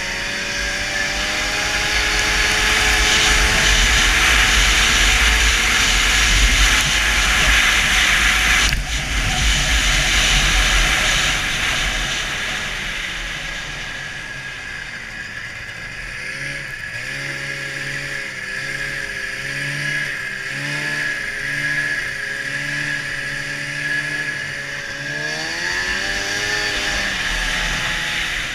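1996 Ski-Doo MXZ 583 snowmobile's two-stroke twin engine running under throttle through deep snow, its pitch rising and falling with the throttle and climbing near the end. A loud rushing of wind on the microphone covers it for the first nine seconds or so, then cuts off sharply.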